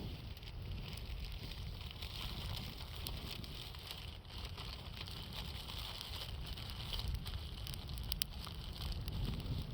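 Wood campfire crackling, with scattered sharp pops and a few quick snaps together near the end, over a steady low rumble of wind.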